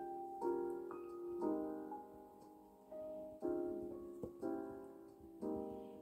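Slow background piano music: sustained chords struck about every one to two seconds, each ringing out and fading before the next.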